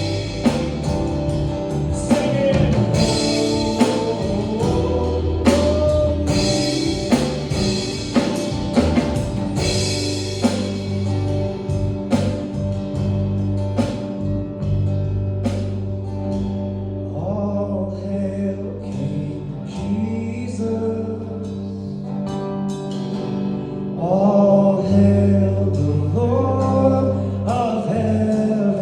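Live worship band playing a gospel song, with singing over bass, guitar and a steady drum beat. The drums drop back midway and the full band comes back in louder near the end.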